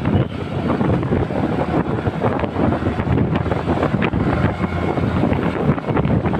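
Wind buffeting the microphone on a moving motorcycle, with the engine running underneath.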